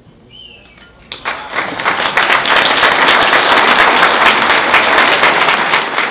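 Audience applauding. The clapping starts about a second in, swells within a second to a full, loud round of applause, and holds steady.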